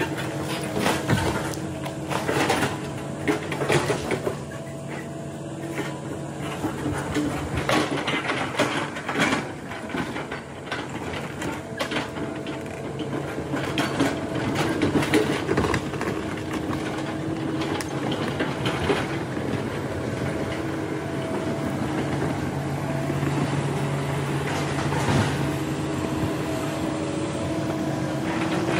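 Hitachi hydraulic crawler excavator's diesel engine running steadily under working load, with repeated sharp cracks and knocks as branches snap and the bucket shoves timber and brush.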